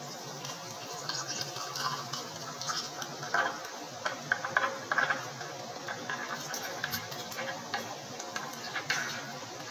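Watermelon milkshake poured from a blender jar into a glass over ice cubes: a running stream of liquid with irregular small splashes and clicks.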